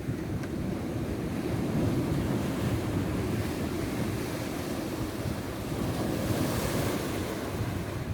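Ocean surf washing onto a beach, with a louder wash of spray about six seconds in. Wind rumbles on the microphone underneath.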